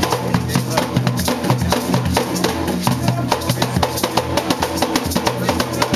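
Garifuna drums played by hand in a fast, driving rhythm, the strokes coming many times a second over a deep, booming drum tone.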